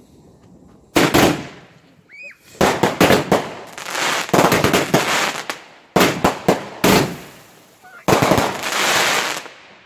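Fireworks going off: a sharp bang about a second in, then repeated bangs and crackling bursts, and a long crackling hiss near the end.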